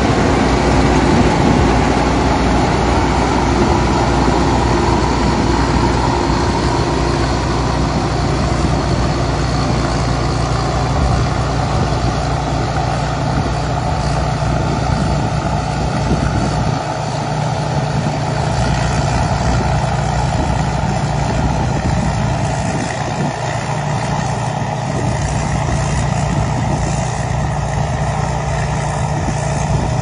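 Tamco S9000 rice combine harvester running steadily while cutting rice, its Isuzu 6HK1 six-cylinder diesel and threshing machinery working under load.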